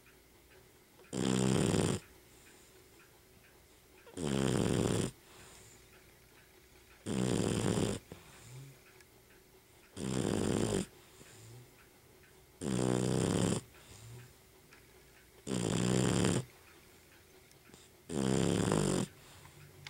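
A dog snoring loudly in its sleep, one snore about every three seconds, each lasting about a second. There are seven snores, with quiet breathing between them.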